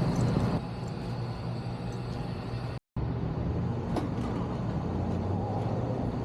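Rooftop HVAC unit running with a steady mechanical hum, cutting out for a moment about three seconds in.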